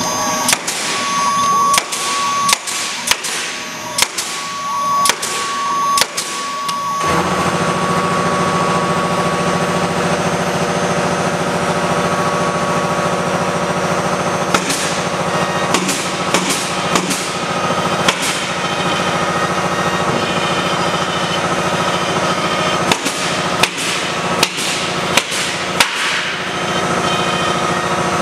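Acctek AKG4040 mini CNC router's spindle cutting a wooden block, a steady whine broken by repeated sharp cracks as the bit bites. About seven seconds in, a louder steady hum sets in and runs on, with further clusters of cracks later.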